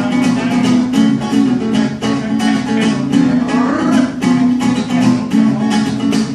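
Instrumental break of a forró song: acoustic guitar strummed to a steady beat, with a short rising run of notes about halfway through.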